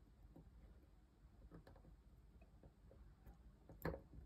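Faint, scattered small clicks of metal tweezers and a jumper wire being pressed into the holes of a solderless breadboard, with one sharper click near the end.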